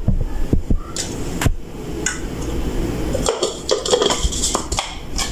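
Kitchen handling clatter: a string of short knocks and clicks as chopped bread is put into a plastic mixer-grinder jar and the lidded jar is handled on a tiled counter. The grinder is not running.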